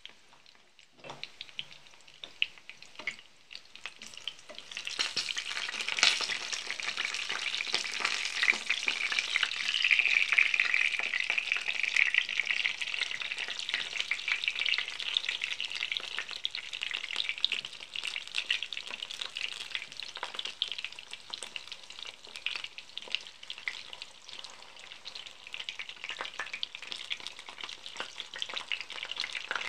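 Meat pirozhki frying in hot oil in a pan, with a dense sizzle and crackle of spattering oil. The sizzle swells a few seconds in, as the pies are turned over with a spatula, and stays strong after.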